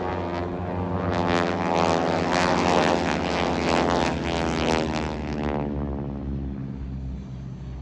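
Propeller airplane's piston engine passing by, loud for about five seconds and then fading away.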